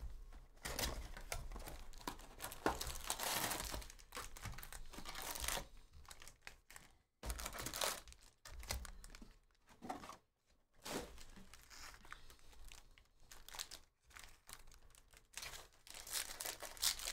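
A cardboard hobby box of 2023 Bowman Draft Jumbo baseball cards being opened and its foil-wrapped packs pulled out and stacked: crinkling and tearing. The noise is densest in the first few seconds, then breaks into short rustles and light taps as the packs are set down.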